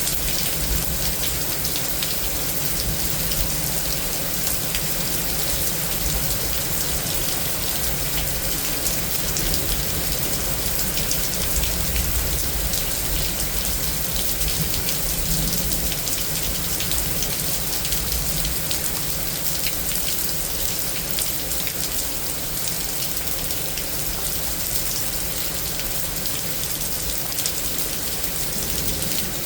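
Rain falling steadily and heavily from a severe thunderstorm, a constant hiss of drops with no letup.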